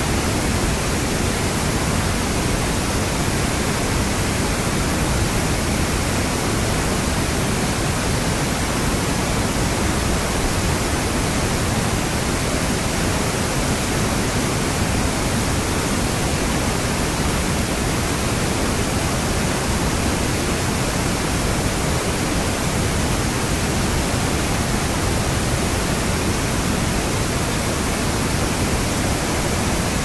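A river in flood after heavy rain, rushing over a rocky waterfall cascade as a loud, steady wash of white water.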